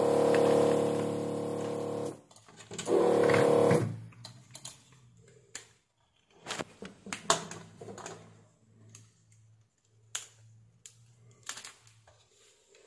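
Vacuum desoldering iron's built-in pump running in two bursts, about two seconds and then about one second, sucking solder from a capacitor's leads on a switch-mode power supply board. Scattered clicks and handling of the board follow.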